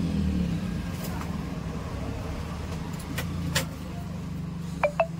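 A low, steady motor hum, with a few sharp clicks about three and a half seconds in and two short squeaks near the end.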